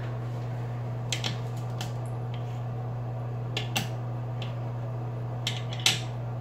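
Light clicks and taps of a pencil stirrer against a small container while slime is stirred, about nine scattered through, the loudest near the end, over a steady low hum.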